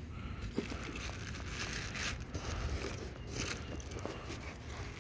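Rustling and light clicking of packaging and plastic parts being handled while a pressure washer is unpacked.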